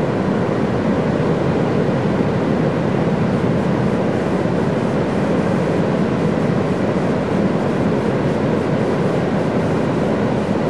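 Steady, loud rush of wind and surf on an open beach, an even noise with no distinct tones.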